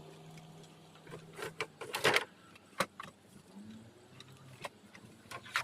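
Scrap being handled and loaded: a handful of sharp knocks and clanks, the loudest about two seconds in and another just before the end, over a faint low steady hum.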